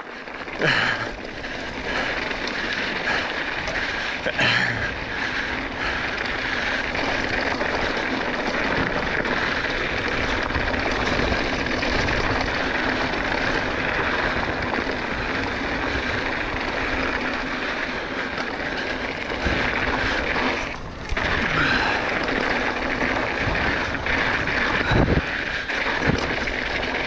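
Steady wind noise on an action camera's microphone mixed with a mountain bike rolling fast over a rocky desert dirt trail. The rush dips briefly about three-quarters of the way through, and a few sharp knocks from the bike over rocks come near the end.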